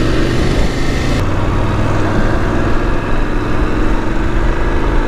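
Voge 900 DSX adventure motorcycle's parallel-twin engine running at a steady pitch, with a rushing hiss over it that thins abruptly about a second in.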